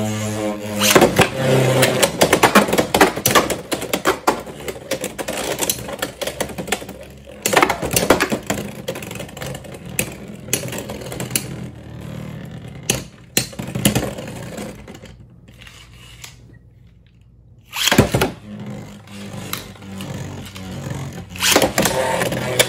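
Beyblade X spinning tops whirring and clashing in a plastic stadium: a spinning top's whine falls in pitch in the first second as it slows, then rapid clacking hits and scraping. It drops almost quiet for a couple of seconds, then a sharp clack and whirring start again.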